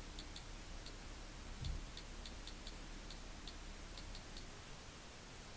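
Kindle Fire HD on-screen keyboard key-press clicks from the tablet's speaker: about a dozen short, faint, irregularly spaced ticks as text is typed, stopping about four and a half seconds in. A faint low thump about a second and a half in.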